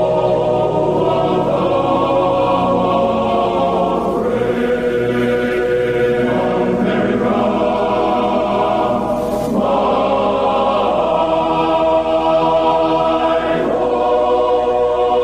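Slow choral music: a choir holds long sustained chords that shift to a new chord every four to five seconds.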